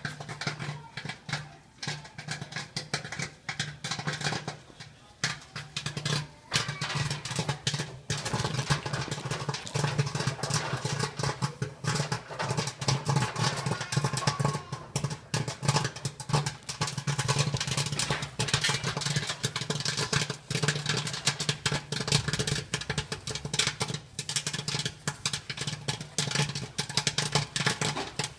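Roosevelt Popper kettle popcorn machine in full pop: a dense, continuous crackle of kernels bursting in the hot kettle, over the steady low hum of its stirring motor.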